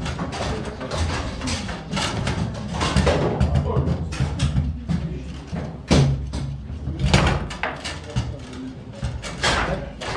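Foosball table in play: sharp wooden and plastic knocks and clacks as the ball is struck by the figures and bangs off the table walls, with rods clattering against their stops. A few hard knocks stand out, about six, seven and nine and a half seconds in. Background chatter and music from the hall.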